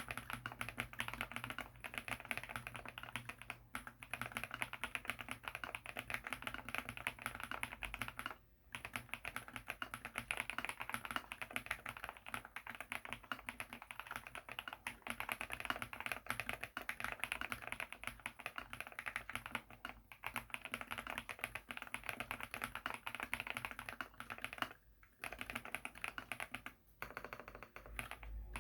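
Fast, continuous typing on a mechanical keyboard with SW x Gateron Deepping linear switches (nylon housings, POM stem, factory-lubed), dense keystrokes with two brief pauses, one about a third of the way in and one near the end.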